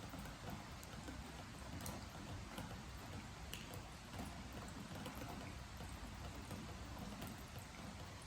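Steady rain on a wooden deck, with drops landing as irregular sharp ticks over an even hiss.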